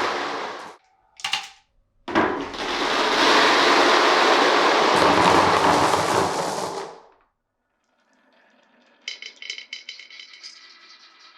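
Glass marbles rolling along a marble run of wooden track and pipes: a loud steady rumble that stops just under a second in, a short clatter, then a second rumble of about five seconds that fades away. After a moment of silence, quick clicking and rattling of marbles hitting track pieces starts near the end.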